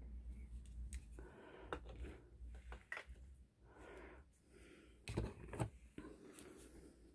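Plastic dip powder jars and their cardboard box being handled: scattered light clicks, taps and rustles, with a louder knocking clatter about five seconds in.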